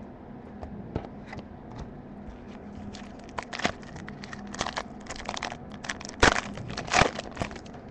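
A foil trading-card pack being torn open by hand, its wrapper crinkling in irregular crackles. The loudest rips come about six and seven seconds in.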